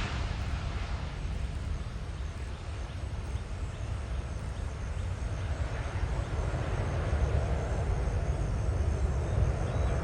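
Airbus A350-900 jet airliner at takeoff power, its Rolls-Royce Trent XWB engines making a steady, deep rumble that grows a little louder in the second half.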